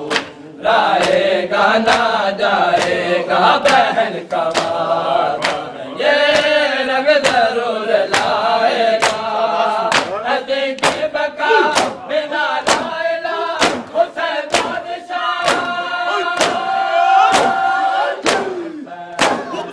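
Male voices chanting a noha, a Shia mourning lament, over a crowd beating their chests in unison (matam). The strikes land about one and a half times a second.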